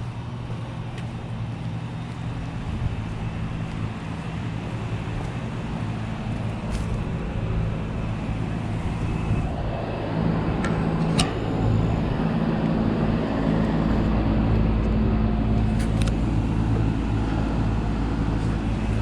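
Heat pump outdoor units running: a steady low hum of compressor and condenser fan over a noise bed, growing louder about halfway through, with a couple of faint clicks.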